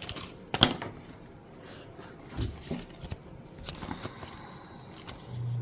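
Handling noises from small packaged first-aid items being picked up and set down: a few sharp clicks and soft plastic rustles and knocks. A low steady hum starts near the end.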